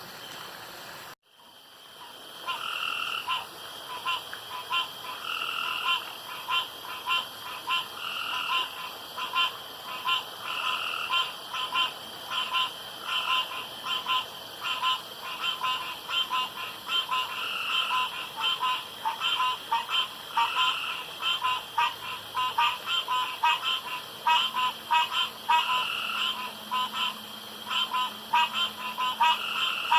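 Several frogs croaking together in a chorus of short, quickly repeated calls that overlap, after a brief cut to silence about a second in.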